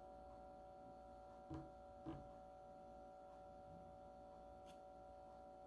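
Near silence: faint room tone with a steady low hum, and two faint short taps about one and a half and two seconds in.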